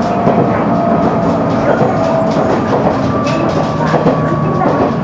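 Running noise heard inside a JR KiHa 100 diesel railcar under way: a steady drone of engine and wheels on the rails, with occasional clicks from the track.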